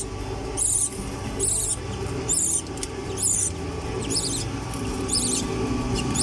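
Newly hatched chick peeping: short, high squeaky cheeps repeating roughly once a second, over steady background music.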